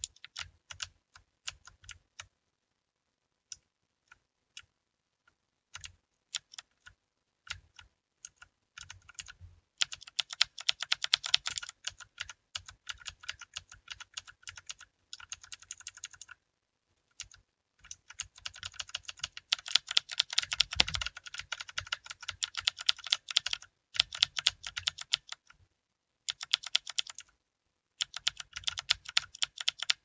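Typing on a Redragon mechanical gaming keyboard: scattered single key presses at first, then fast runs of keystrokes broken by short pauses. One dull knock stands out about two-thirds of the way through.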